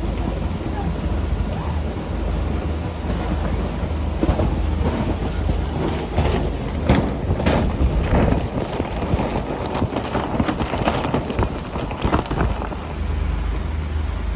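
Heavy wind buffeting the microphone in pouring rain: a steady low rumble under a noise haze. From about four seconds in, a flurry of sharp knocks and clatters runs for several seconds.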